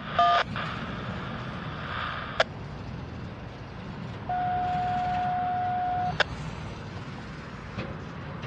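Railroad radio scanner giving a few short beeps at the start, a click, then one steady tone for about two seconds that cuts off with a click, over a low steady rumble.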